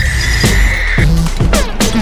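Montage music with drum hits, and a car's tyres squealing in a drift, the squeal cutting off about a second in.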